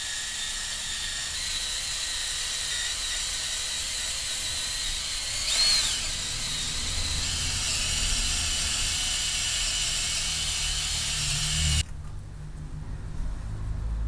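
DeWalt cordless drill running steadily with a round abrasive brush scrubbing rust off the face of a wheel hub, a high motor whine over the grinding. It swells briefly a little past the middle, then cuts off abruptly near the end, leaving a rag rubbing.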